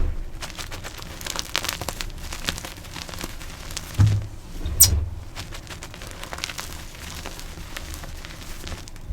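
Blocks of gym chalk being crushed by hand: a dense run of dry crackling and crunching, with two heavier crunches about four and five seconds in.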